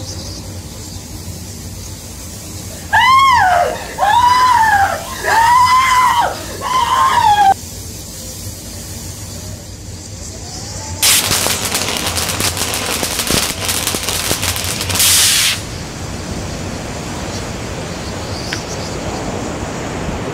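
A person screaming four times in quick succession, each scream high-pitched and rising then falling. A few seconds later comes about four and a half seconds of loud crackling noise. A steady low hum runs underneath.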